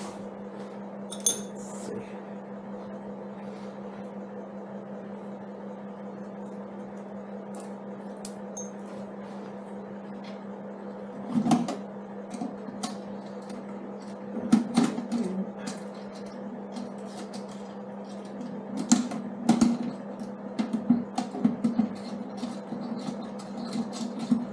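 Hand tools and bolts clinking and clicking against a motorcycle's steel pannier frame as a toolbox bracket is fastened: a single click about a second in, then bunches of metal clicks from about eleven seconds on. A steady low hum runs underneath.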